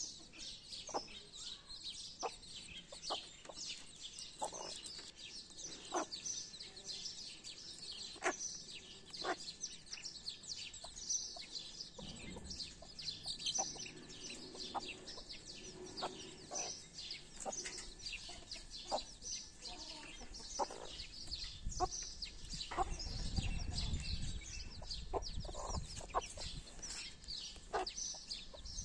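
Young chicks peeping continuously in rapid, overlapping high-pitched chirps, with occasional lower clucks from the mother hen and scattered short clicks. A low rumble swells about three quarters of the way through.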